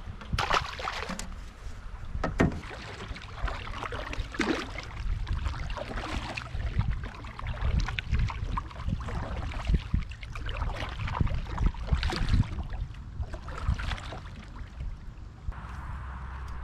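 Water splashing and sloshing around a kayak as it moves along the river, with irregular splashes throughout.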